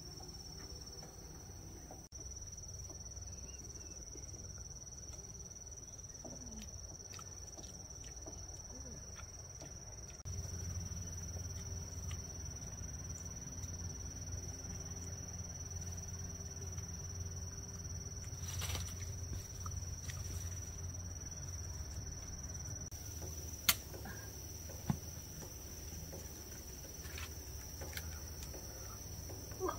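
Insects trilling in one steady, high-pitched tone over a low rumble that grows louder about a third of the way in, with two sharp clicks about a second apart near the end.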